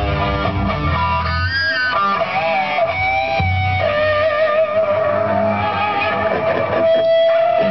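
Live rock band playing through amplifiers: an electric guitar holds long notes that bend and waver in pitch, over a bass guitar line.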